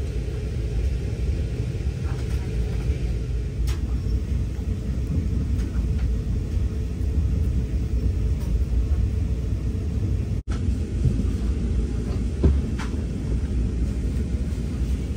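Steady low rumble inside a Brightline passenger coach under way, the wheel and track noise of the moving train, with a few faint clicks. The sound drops out for an instant about ten seconds in.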